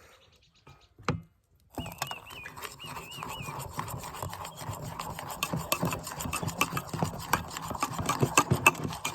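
After a near-silent pause, a spoon starts scraping and clinking against a container about two seconds in, with many quick scratchy strokes and small clicks.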